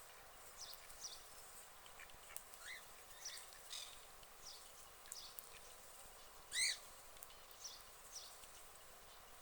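Short, high-pitched bird calls: about fifteen brief chirps scattered irregularly, with one clearly louder call about six and a half seconds in, over faint background hiss.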